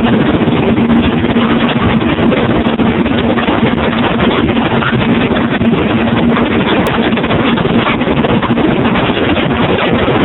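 1971 Chrysler 70 hp outboard motor running steadily with the boat underway, a steady engine hum over a constant rushing noise.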